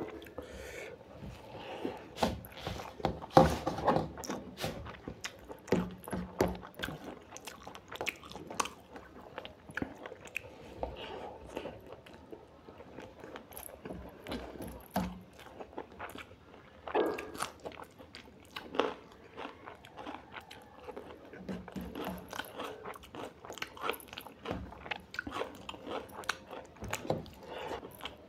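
A person eating a mutton curry meal, chewing and biting with irregular wet smacks and clicks of the mouth.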